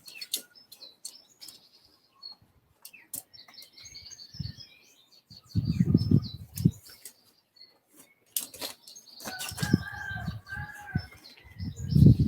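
Tent fabric rustling and flapping as it is handled, with scattered sharp clicks and knocks from the tent poles. Heavier bouts of rustling come about halfway through and again near the end.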